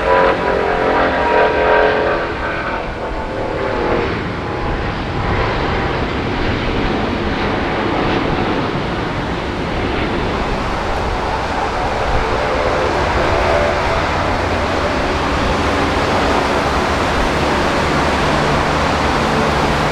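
Jet airliner engines: a whining fan tone fades away over the first few seconds, leaving a steady rushing roar mixed with the hiss of heavy rain and water spray.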